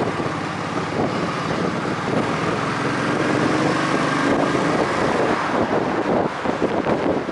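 An engine running steadily, with wind buffeting the microphone; its pitch rises slightly about halfway through.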